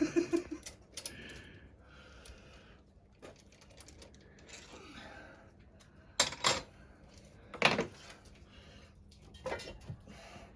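Scattered metallic clinks and knocks of tools and engine parts being handled, with a few sharp knocks a little past the middle, another about a second later, and a weaker one near the end.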